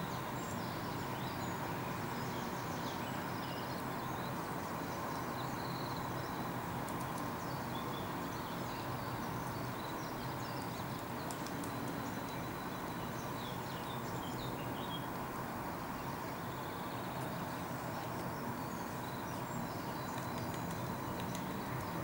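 Woodland birdsong, many small scattered chirps and short phrases, over a steady low background rumble, with a few faint taps.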